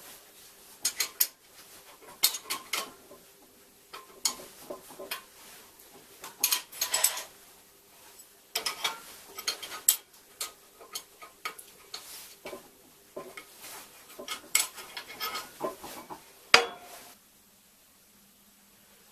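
Steel spanners clinking and scraping on bolts and steel plate as a plate is bolted onto the bending arm of a homemade sheet metal folder: irregular metal clinks in short bunches, with one sharp clack near the end.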